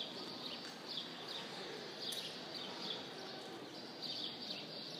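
Small birds chirping repeatedly: short, high chirps that slide downward, about two a second, over a steady hum of room noise in a large open-sided arena.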